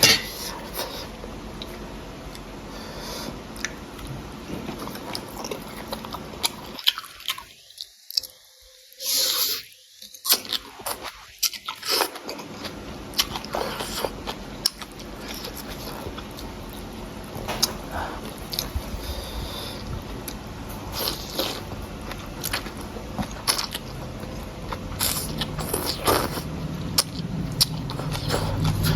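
Close-miked chewing and crunching of food, with many small clicks.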